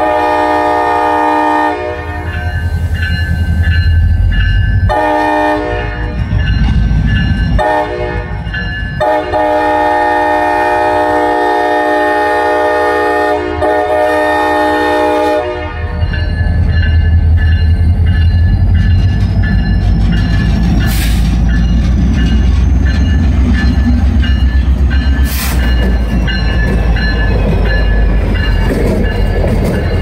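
A CSX GP40-3 diesel locomotive blows its horn for a grade crossing in the long, long, short, long pattern, the last blast held about six seconds, over the low rumble of its engine. The locomotive then passes close by with its engine loud, and the freight cars roll over the crossing with a faint high wheel squeal and two sharp clanks.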